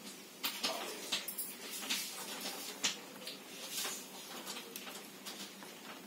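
Rose-ringed parakeet clambering on a wooden door frame and wire cage: irregular scratches, clicks and taps from its claws and beak, thinning out after about four seconds.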